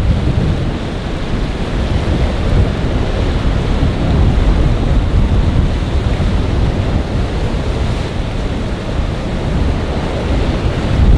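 Strong wind buffeting the microphone over choppy surf and breaking waves, a steady rough rumble.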